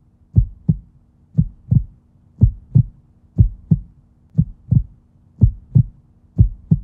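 Heartbeat sound effect: paired low thumps, lub-dub, about once a second, over a faint steady hum.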